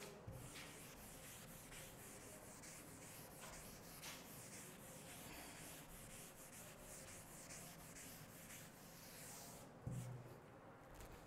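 Blackboard duster rubbing back and forth over a chalkboard, wiping off chalk writing in many quick, faint strokes. There is a brief low thump near the end.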